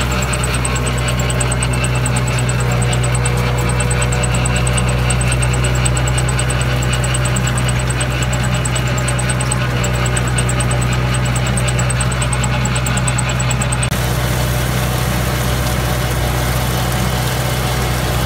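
Tractor engine running steadily at an even pitch, with a deep, constant hum, while working a wing harrow. A faint, rapid high chirping runs alongside it and stops about fourteen seconds in.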